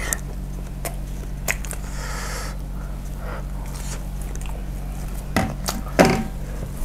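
A person chewing a mouthful of food close to a clip-on microphone, with scattered wet mouth clicks over a low steady hum. Two louder sudden mouth sounds come near the end.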